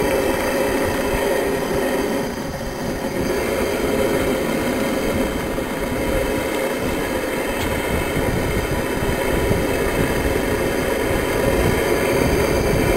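Live-steam plant of a radio-controlled model boat running: the fired boiler and small steam engine give a steady hissing rush with a few constant tones through it.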